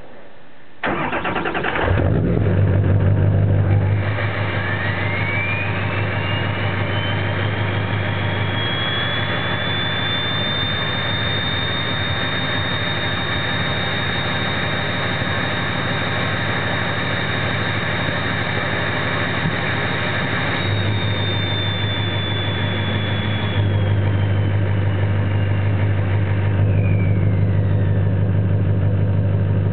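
Ford 6.0L Power Stroke V8 diesel starting about a second in, then running steadily. A high turbo whistle from its VGT-SS turbocharger rises in pitch, holds steady for a long stretch, then drops away in two steps near the end.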